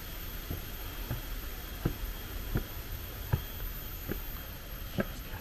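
Footsteps on stone paving at an even walking pace, about seven steps, over a steady low rumble.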